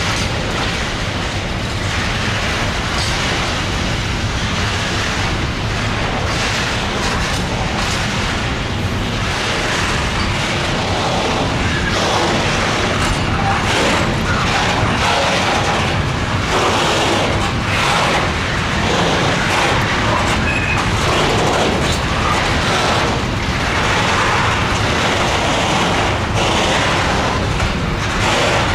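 A locomotive running close by: a steady low hum under a loud rushing noise, with short irregular surges.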